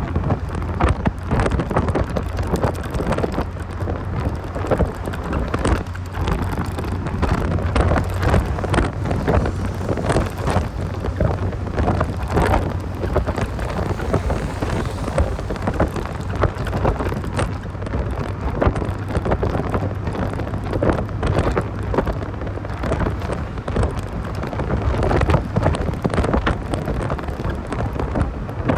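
Heavy wind buffeting and crackle on the microphone over the steady low drone of a 1990 Mazda Miata's 1.6-litre four-cylinder engine while driving.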